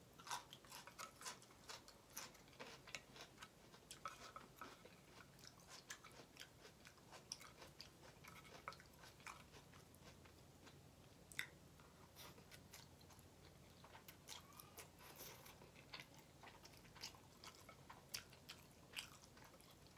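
A person chewing and smacking their lips while eating: soft, irregular clicks and smacks, several a second, with one sharper click about eleven seconds in.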